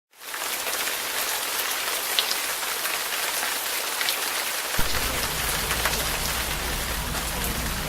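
Snowstorm precipitation falling steadily, a hiss of many small ticks as it hits surfaces. A low rumble joins suddenly about five seconds in.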